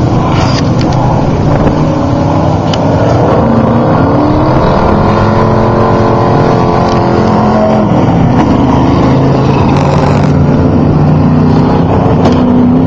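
Off-road race truck engines running hard and loud, one rising and then falling in pitch through the middle as it passes.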